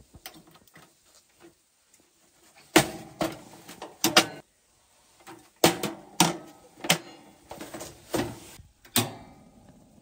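A run of sharp knocks, clatters and rustles, about a dozen between about three and nine seconds in, the sound of gear and tent being handled at close range.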